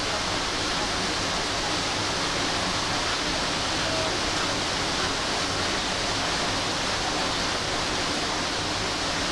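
A steady, even rushing hiss at a constant level, which starts and stops abruptly.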